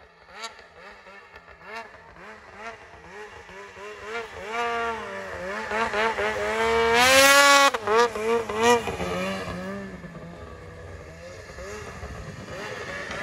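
Two-stroke snowmobile engine running loud, its revs rising and falling as the sled rides toward and past. The pitch climbs to the loudest point about seven seconds in, drops sharply as the sled goes by, and then fades away.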